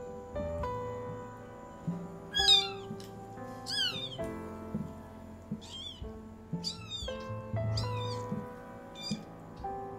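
Newborn kitten mewing in high, shrill cries, about five times, the loudest about two and a half seconds in. Soft background music with sustained notes plays underneath.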